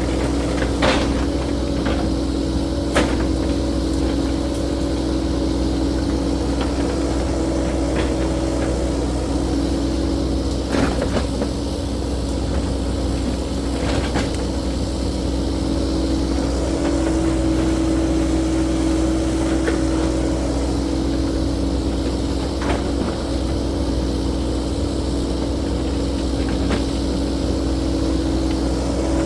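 Cat 308E2 mini excavator's diesel engine running steadily under work, with a scattering of sharp knocks a few seconds apart.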